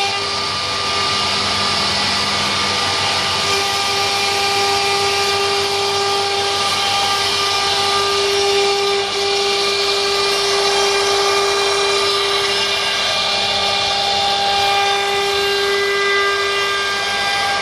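CNC wood router's spindle running with its bit cutting grooves into a wooden panel. It makes a steady whine over the noise of the cut, and one tone swells and fades in stretches as the bit moves along the groove.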